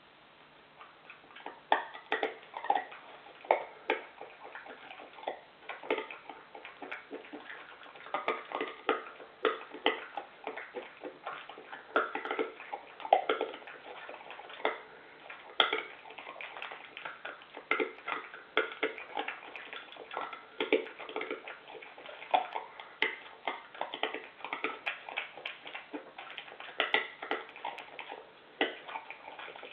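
A European badger eating dry food from a metal bowl: irregular crunching and clinks against the bowl, several a second, heard through a security camera's microphone.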